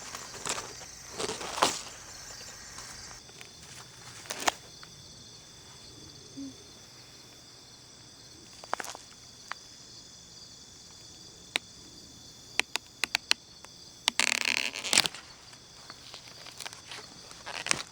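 Dry corn stalks, leaves and husks snapping and crackling in scattered sharp clicks as ears are picked and the spent plants cleared, with a quick run of snaps and then a longer crackling rustle near the end. Insects chirr steadily in the background.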